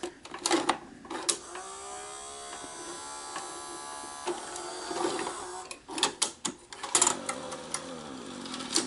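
NEC VC-N20EU Betamax VCR's front cassette loader taking in a tape. A few clicks come as the cassette is pushed in. The loading motor then whines for about three seconds, its pitch rising at first, and a run of clicks and clunks follows about six to seven seconds in as the mechanism seats the cassette. The loading belt is slipping, which is why the cassette has trouble going in.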